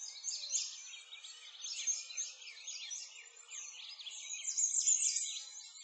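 Many birds chirping and singing at once: a dense chorus of overlapping high chirps and quick sweeping notes, without a break.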